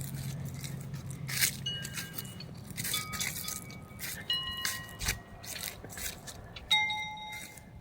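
Footsteps crunching along a trail, with four short metallic clinks that ring briefly, spread through the stretch.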